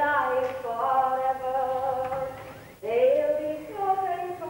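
A woman's voice singing a slow, unaccompanied chant in long held notes: two phrases, the second starting after a short break about three seconds in.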